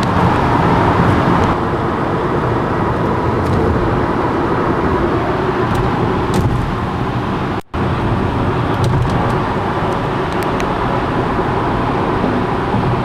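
Steady road and engine noise heard from inside a Volkswagen car's cabin as it drives in freeway traffic, cut by a brief dropout a little over halfway through.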